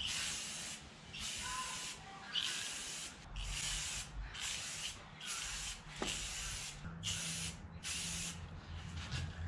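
Aerosol spray paint can hissing in about nine short bursts with brief pauses between them, as paint is sprayed onto hubcaps stroke by stroke.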